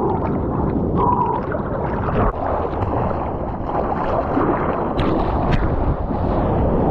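Ocean water sloshing and splashing close to a camera at water level, a muffled steady rush. Two short clicks come about five seconds in.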